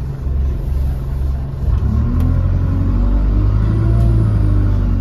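Alexander Dennis Enviro200 single-decker bus engine heard from inside the passenger saloon, a low steady drone that rises in pitch and gets a little louder about two seconds in as the bus accelerates.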